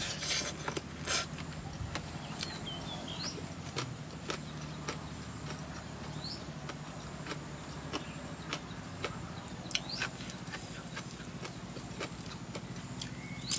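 Eating sounds: scattered crunches and clicks of chewing and handling food. A few short bird chirps come now and then, over a steady low hum.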